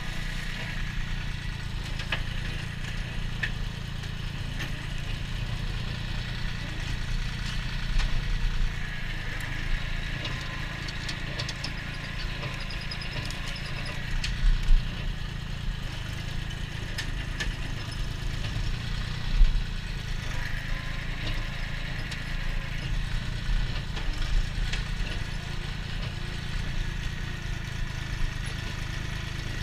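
Compact tractor engine running steadily while driving a flail mower through brush and nettles, with scattered clicks and a few louder thumps, the loudest near the middle and about two-thirds of the way in.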